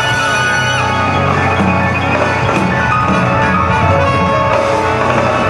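Live pop-flamenco band playing, with held chords over drums and percussion.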